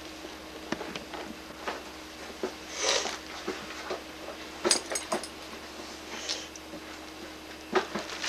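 Thin plastic shopping bag crinkling and rustling under a cat as it shifts and mouths at it. The crackles come in short irregular bursts, loudest about three seconds in and again around five seconds in.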